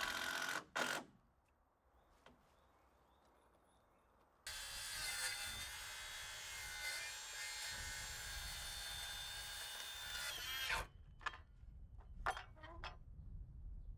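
Handheld circular saw running and cutting through a timber board for about six seconds. It starts abruptly about four seconds in and stops suddenly, followed by a few sharp clicks and knocks. A drill-driver runs briefly at the very start.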